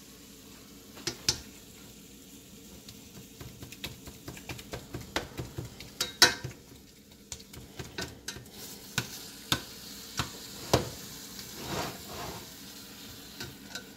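Slotted metal spatula scraping and clicking against a stainless steel skillet in irregular strokes as it breaks up ground beef, with the meat sizzling as it fries.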